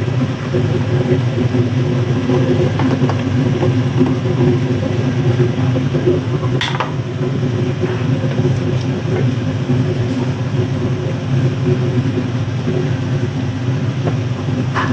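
Steady hum of a kitchen fan with the sizzle of green beans being stir-fried in chili sauce in a wok, and one sharp clack of the wooden spatula against the pan about halfway through.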